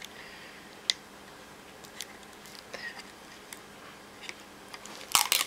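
Small plastic clicks and taps from handling the hard plastic shell of a rugged phone case, a few scattered about a second apart. Near the end comes a short, louder crackling rustle as the thin protective film is peeled off the inside of the shell.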